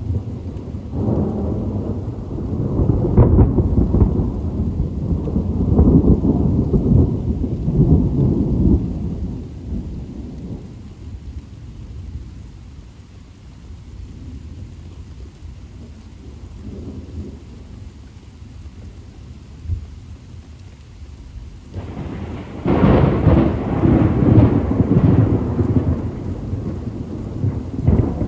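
Thunder rolling in a long low rumble for about the first ten seconds, then dying down to steady rain, followed by a second, sharper and louder peal of thunder about three-quarters of the way through.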